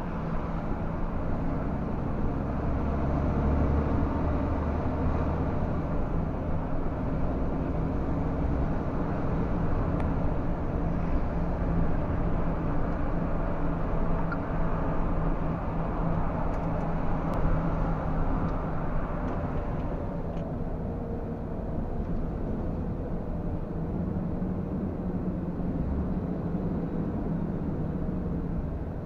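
MAN TGS 33.480 truck's straight-six diesel engine running under way, heard from inside the cab together with road noise. About two-thirds of the way through the sound grows duller as its higher part falls away.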